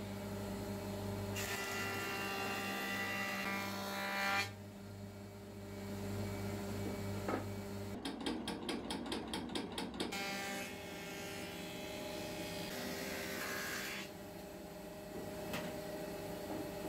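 Woodworking power tool running on wood: a steady motor hum with rougher stretches as it works, and a run of quick rasping strokes, about six a second, in the middle.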